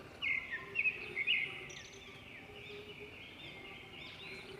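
Small birds chirping in quick, short, rising and falling calls, loudest in a burst of chirps in the first second and a half, then softer and continuing.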